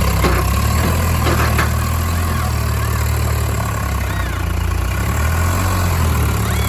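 Heavy diesel engine running steadily with a deep, even drone.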